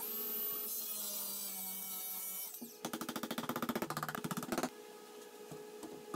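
Cordless circular saw running as it cuts shallow notches in plywood, then a handheld power tool rattling fast and evenly for about two seconds starting near the middle.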